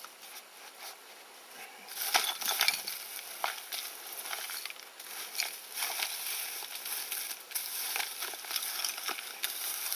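Hands scraping and brushing dry soil and straw around a tin can set into the ground: dry scratching and crackling with many small clicks, starting about two seconds in.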